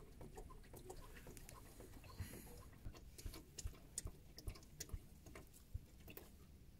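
Faint, irregular ticking and pattering of old engine oil falling in a thin stream from a mini excavator's sump drain hole into a plastic drain pan, the oil draining out after a change.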